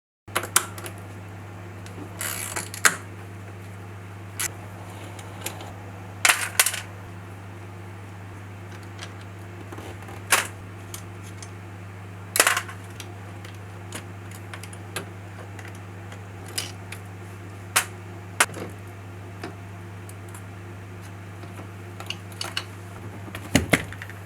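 Scattered metallic clicks and clinks of hand tools and brake parts being handled during motorcycle rear brake caliper work, over a steady low hum.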